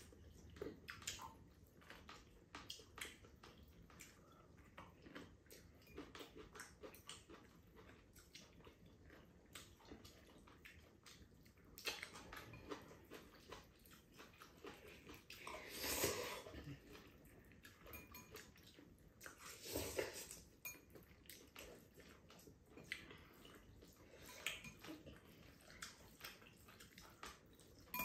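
Two people eating noodles: quiet chewing and frequent small clicks of chopsticks and a fork against ceramic bowls, with two louder, longer slurps of noodles a little past halfway.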